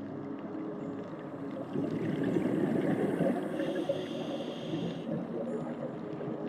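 Underwater sound heard through a camera housing: a scuba diver's breathing through the regulator, with a rush of exhaled bubbles about two seconds in, then a hissing inhale, over a low steady hum.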